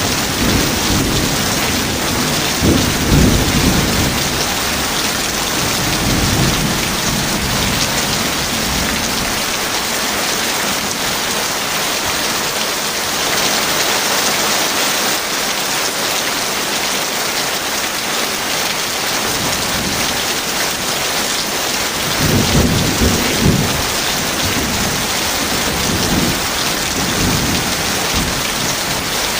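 Heavy rain falling steadily, with two long rolls of thunder rumbling through it: one in the first several seconds and another about three quarters of the way through.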